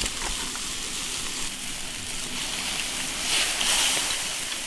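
Spicy fish broth simmering in an iron wok, a steady bubbling hiss, with raw sturgeon slices just added to it.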